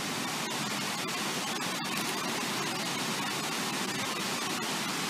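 Fast river current rushing past a concrete wall, a steady even rush of water.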